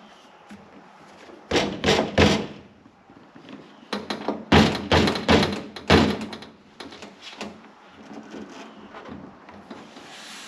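Hand thumping a new door panel onto a 1970 VW Beetle's door to knock its clips home: a quick run of three or four thumps, then about six more.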